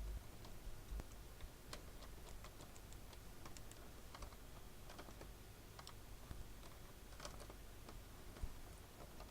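Faint, irregular light clicks and taps of small hand tools worked on an electronics circuit board.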